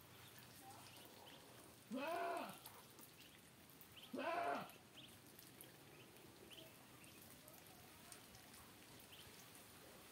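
Two loud bleats from a farm animal, about two seconds apart, each about half a second long and rising then falling in pitch. Between them come faint, short, high peeps from ducklings.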